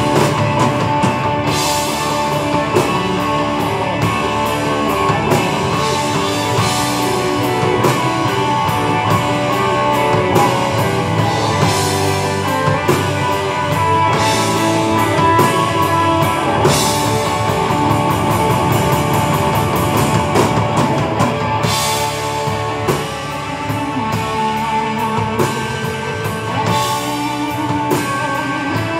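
Live rock band playing an instrumental passage: two electric guitars and a drum kit, with a Hammond organ, and cymbal crashes every few seconds.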